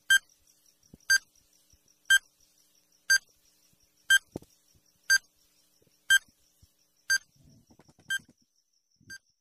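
Countdown timer sound effect: a short electronic beep exactly once a second, ten in all, the last one fainter, over a faint high pulsing tone.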